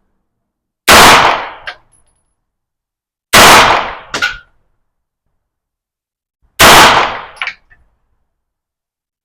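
Three single shots from a 9mm AR9-style pistol-calibre carbine, spaced about two and a half to three seconds apart. Each shot is followed by a fainter sharp crack under a second later.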